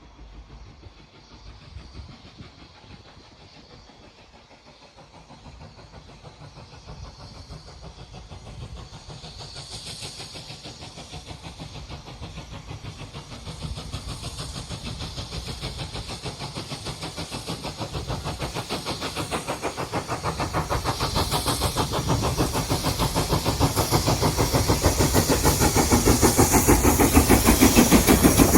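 GWR Grange class 4-6-0 steam locomotive 6880 Betton Grange approaching while working, its rapid, even exhaust beats growing steadily louder.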